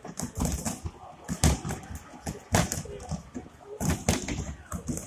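Boxing gloves punching a freestanding heavy bag: a string of irregular dull thuds, sometimes two or three in quick succession.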